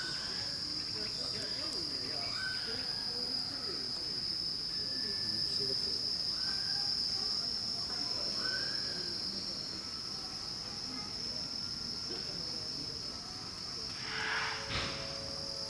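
Insects stridulating in a steady, high-pitched chorus, with faint short calls recurring every couple of seconds. Near the end comes a brief rustle and a single knock.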